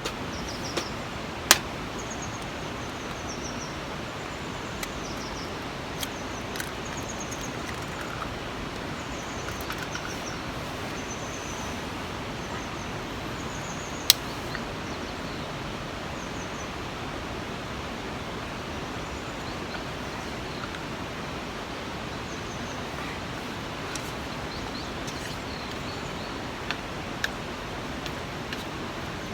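Steady rush of a nearby river, with a run of short high chirps for the first several seconds and a few sharp clicks, the loudest about a second and a half in and again about fourteen seconds in.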